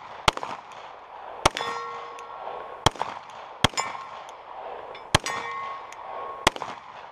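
Semi-automatic pistol fired six times at an even pace, about one shot every second and a bit. After some of the shots, a steel target rings for about a second.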